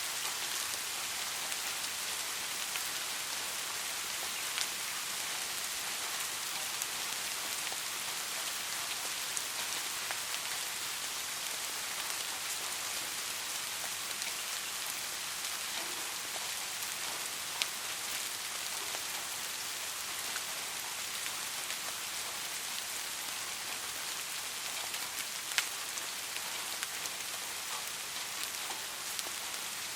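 Soft rain falling steadily: an even hiss with scattered individual drop ticks, two of them louder, about halfway and near the end.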